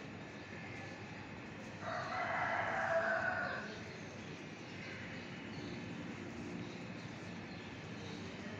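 A single drawn-out animal call lasting about two seconds, starting about two seconds in, over a steady low background hum.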